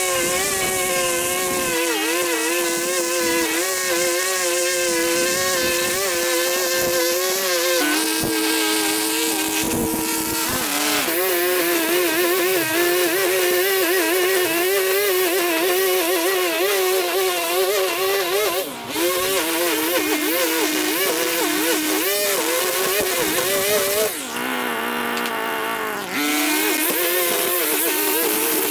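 Small petrol lawn-care engine running at high revs while cutting, its pitch wavering as the load changes. The revs settle lower for a few seconds about a third of the way in, dip briefly past the middle, and drop for about two seconds near the end before picking up again.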